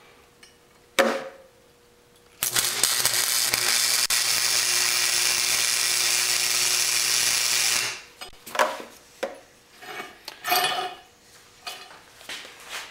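MIG wire-feed welder running a weld on steel for about five and a half seconds, starting about two and a half seconds in: a steady crackling sizzle over a low hum. Short metallic clicks and clanks come before and after it.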